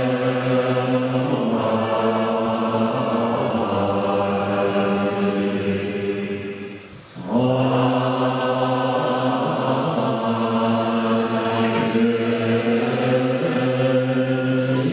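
Tibetan Buddhist monks chanting puja prayers together in unison, in long sustained notes. The chant breaks off briefly for breath about seven seconds in, then resumes.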